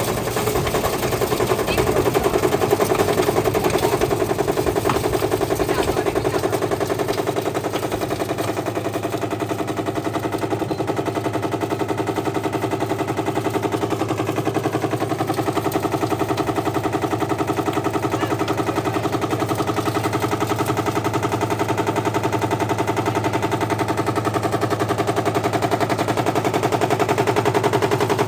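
Whirlpool washing machine running with heavy bricks in its drum: a fast, unbroken rattle of bricks hammering against the drum, over a steady motor hum.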